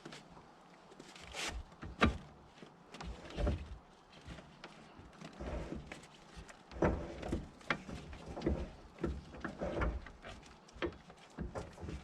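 Irregular knocks, clinks and scuffs of hands-on work hooking a rear snowblower to a tractor's three-point hitch and PTO shaft, with the tractor engine off.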